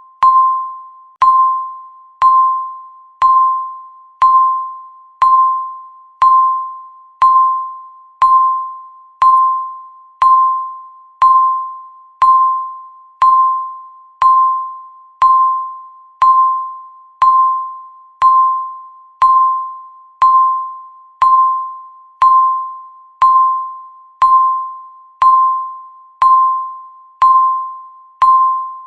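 Countdown timer ticking the seconds with a bell-like ding: a single tone at one pitch, struck once a second and dying away quickly each time, in a steady unbroken rhythm.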